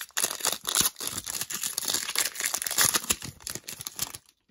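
Foil wrapper of a 2020 Panini Prizm Draft Picks football card pack being torn open and crinkled by hand. It makes a dense crackling that stops abruptly about four seconds in.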